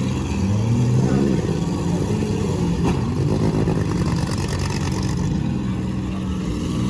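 Several demolition derby cars' engines running and revving together, their pitches rising and falling.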